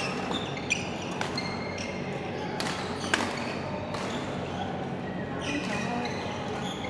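Badminton rackets striking shuttlecocks in a large hall: a few sharp hits, the loudest about three seconds in. Between the hits come short, high squeaks of shoes on the court floor.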